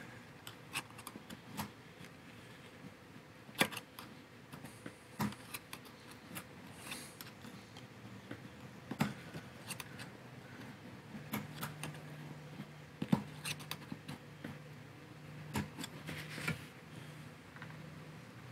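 Scattered light clicks and taps of gloved hands working plastic fittings at the fuel pump opening of a plastic fuel tank. A low steady hum joins about eleven seconds in.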